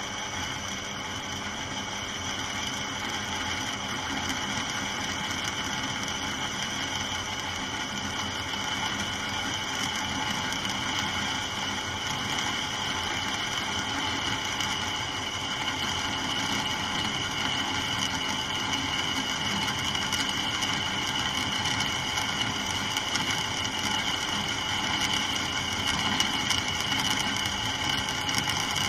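Peugeot Outillage drill press running with an 8 mm twist bit boring into scrap metal: a steady motor and spindle hum under the scraping of the bit cutting, growing gradually louder. The spindle speed is one the owner finds almost too fast for metal.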